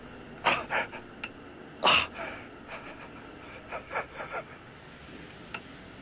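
A man sobbing, with sharp gasping intakes of breath and whimpers; the loudest gasp comes about two seconds in, followed by a run of smaller sobs.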